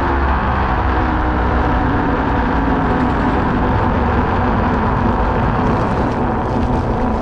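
Minimotors Dualtron Thunder electric scooter riding at speed on asphalt: a steady rush of tyre and wind noise on the low-mounted camera's microphone, with the hub motors' faint hum, which dips and rises slightly in pitch around the middle.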